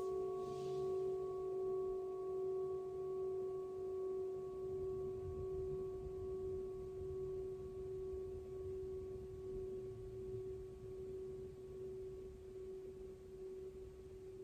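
Singing bowl ringing out in one long, steady tone with a few overtones, slowly dying away.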